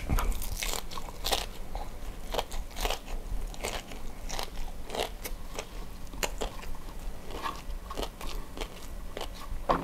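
Close-miked biting and chewing of crispy fried chicken with rice, a run of irregular crunches about every half second to second.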